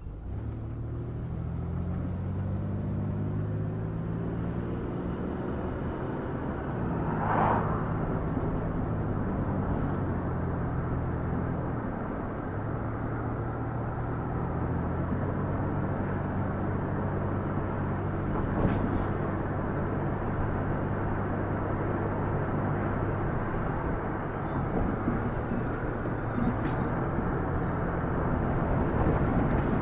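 A vehicle's engine and road noise while driving: the engine pitch climbs as it accelerates, drops back about seven seconds in and again about twelve seconds in as it shifts gear, then holds fairly steady.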